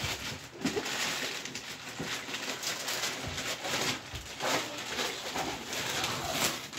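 Wrapping paper and a foil gift bag crinkling, rustling and tearing as presents are unwrapped, in an irregular run of crackles.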